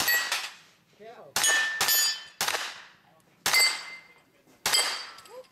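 Pistol-caliber carbine fired six times at an uneven pace, each shot followed by the ringing of steel targets being hit.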